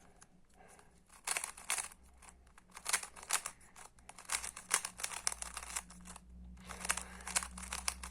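Magnetic speed cube, unlubricated and a bit stiff, being turned fast during a solve: rapid irregular clusters of plastic clicking and clacking, starting about a second in, with short pauses between bursts of turns.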